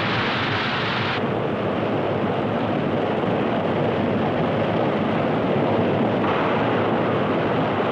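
Steady roar of the Zambezi's white water churning over rocks in the gorge at Victoria Falls. The sound dulls abruptly about a second in and brightens again about six seconds in.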